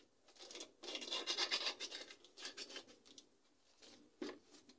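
Paper sachet of baking powder crinkling as it is torn open and shaken out over a small glass bowl: a dense rustle of about a second and a half, a few faint scratches, then a single light tap near the end.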